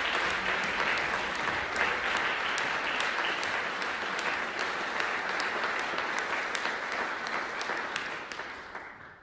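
Audience applauding, many hands clapping steadily; it dies away near the end.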